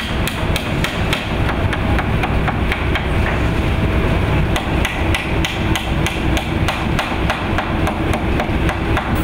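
A small hammer tapping nails into the wooden back slats of a rocking chair, a quick series of light strikes about three a second with a short pause midway, over a steady low drone of shop machinery.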